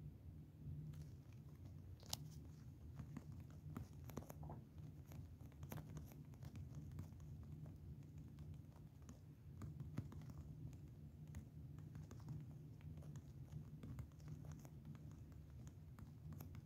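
Faint steady low hum with scattered soft, irregular clicks and crackles.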